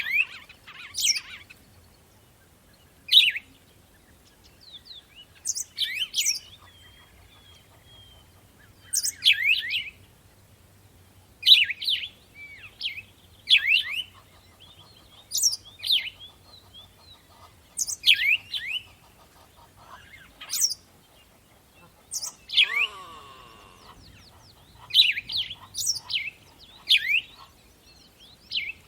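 Birds singing: short, bright chirping phrases repeated every second or two. About two-thirds of the way through comes a different, lower call that falls in pitch.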